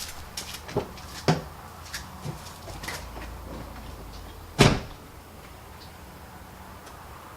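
A few light knocks, then a door shut with a single loud thud about four and a half seconds in.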